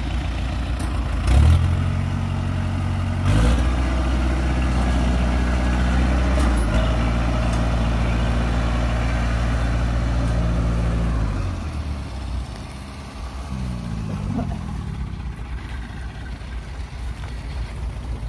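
Diesel engine of a tracked rice harvesting machine in deep mud, revving up in steps and holding high under load, then dropping back about two thirds of the way through, with a short rise again soon after.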